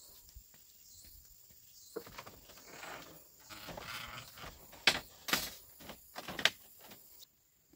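Footsteps climbing bamboo steps and crossing a slatted bamboo floor, with rustling, then several sharp knocks of feet on the bamboo during the second half.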